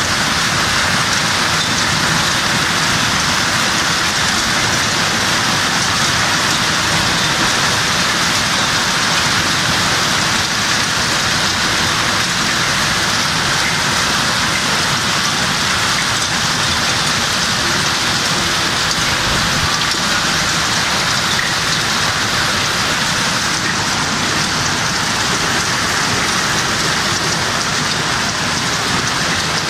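Heavy rain mixed with hail pouring down onto a street, a parked car and building walls: a dense, steady hiss with no letup.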